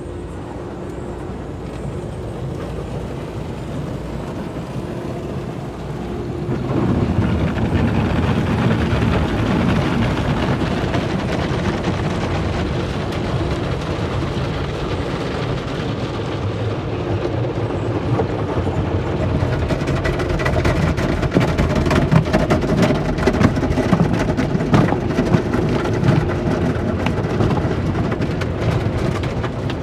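Automatic car wash heard from inside the car: water spraying and washing over the windshield and body, growing louder about six seconds in. From about twenty seconds, the wash's brush and cloth strips slap and scrub across the glass and panels in quick, irregular strokes.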